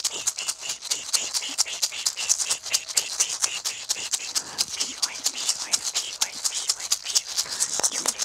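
A pair of red maracas shaken steadily and rapidly, about five shakes a second, giving a continuous crisp rattle.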